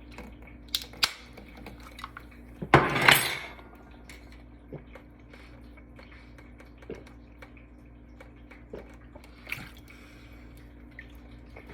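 Metal drink can being handled for a shotgun: light metallic clicks and clinks, with one loud, harsh burst about three seconds in as the can is opened.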